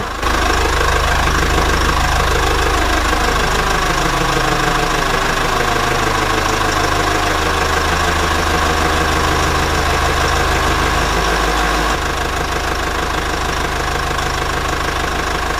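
Heavy-equipment engine running steadily, starting abruptly as the music stops; its pitch glides a little in the first few seconds, and the sound shifts slightly and drops in level about twelve seconds in.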